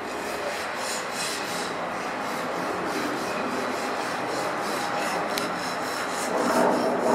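An aircraft approaching, the rushing noise of its engines growing steadily louder.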